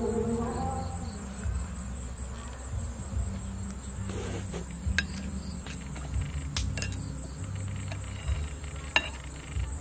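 Insects chirring with a steady high-pitched tone, and a metal spoon clicking a few times against a ceramic bowl, the sharpest clicks about halfway through and near the end.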